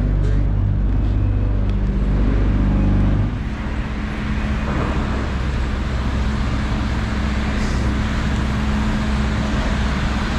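HGV diesel engine running with a steady low drone; about three seconds in its tone drops and shifts to a different steady pitch, as when the revs change.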